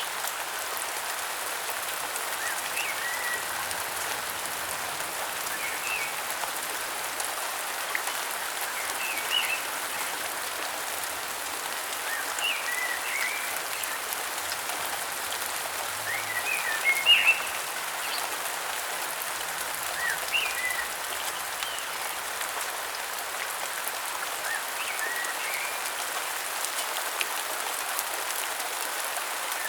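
Steady rain, with short high chirping calls from a bird that recur about every three seconds.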